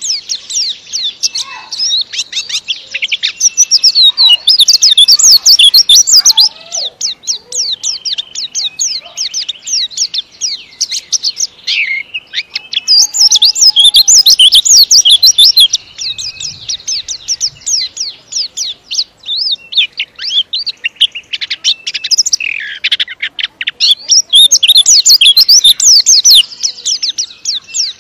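White-eye (pleci) singing a long, fast, tightly packed song of high twittering notes, without pause. It swells three times into longer, louder runs, each a few seconds long.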